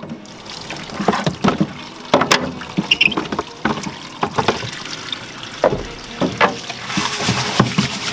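Tap water running from a utility sink faucet into a plastic poultry waterer jug as it is rinsed out, with sloshing and repeated knocks of the jug being handled in the sink. The hiss of running water grows stronger near the end.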